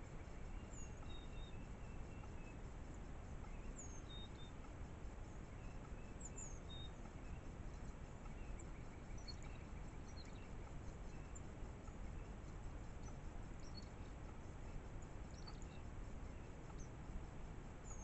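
Faint, scattered short high chirps and whistles of small wild songbirds, over a steady low hiss.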